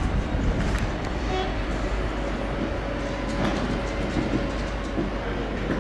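Two GB Railfreight diesel locomotives running light, coupled together, with a steady engine rumble and the clatter of wheels over the points.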